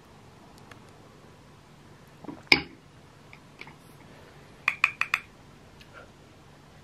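Small objects handled on a wooden desk: one sharp knock about two and a half seconds in, a few faint ticks, then four quick clicks in a row a little later.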